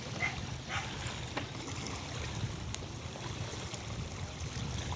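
Small sea waves washing and lapping over a rocky, pebbly shoreline, a steady watery wash with a low rumble underneath and a few faint clicks.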